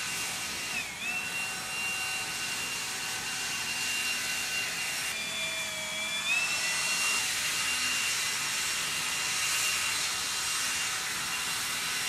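Battery-powered leaf blower running: a steady rush of air with a high motor whine. The whine dips briefly about a second in, drops lower again around the middle for a second or so, then climbs back.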